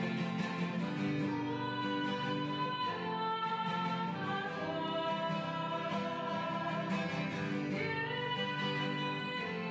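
Church hymn sung to acoustic guitar accompaniment, the melody moving in held notes of about a second each.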